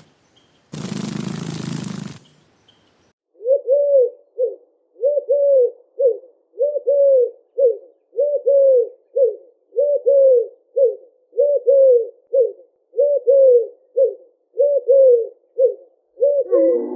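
A short rough roar-like burst, then a bird cooing: low hollow notes in a short phrase repeated steadily, about once every second and a half.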